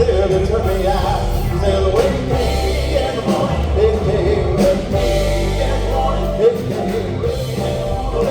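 Live gospel quartet singing close harmony over an upbeat band with bass and guitar.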